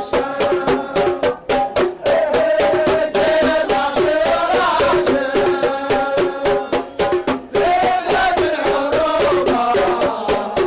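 Hadrami folk music played in the street: frame drums and a double-headed barrel drum beating a fast, steady rhythm, under a group of men singing together.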